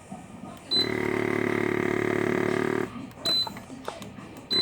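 Small electric vacuum pump of a remote-controlled exhaust valve unit switching on with a short beep and running with a steady, fast-pulsing hum for about two seconds, pulling vacuum to open the muffler's butterfly valve. It stops, gives another brief beep and a short burst of running, then beeps and starts again at the end.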